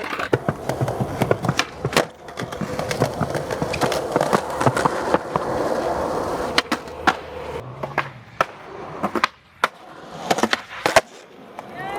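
Skateboard rolling with a steady rumble of the wheels, broken by repeated sharp clacks of the board's tail and deck hitting the ground, with a burst of several loud cracks about ten seconds in after the rolling briefly drops away.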